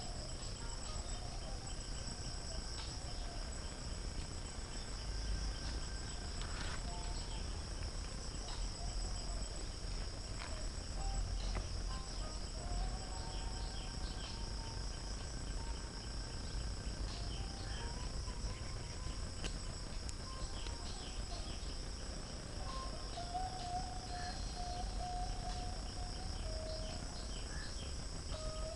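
Insects chirring steadily in a continuous high-pitched drone, over a low rumble with a few faint clicks.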